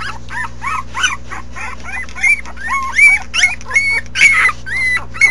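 Newborn puppies squealing: a run of short, high cries that rise and fall, several a second, from more than one pup at a time.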